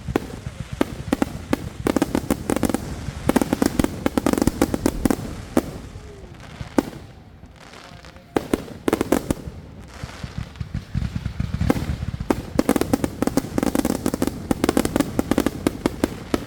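Consumer fireworks going off in rapid volleys of sharp bangs, in two long barrages with a short lull between them.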